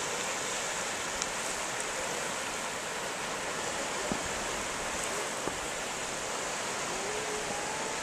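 Small lake waves lapping and washing onto a sandy, pebbly shore: a steady, even hiss, with a few faint ticks.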